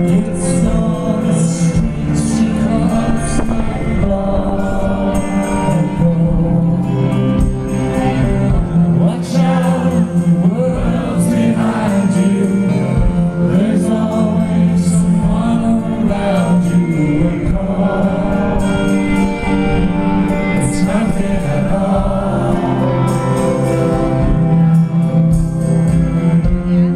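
Live band music: keyboards, electric guitar and bass under sung vocals, heard from among the audience.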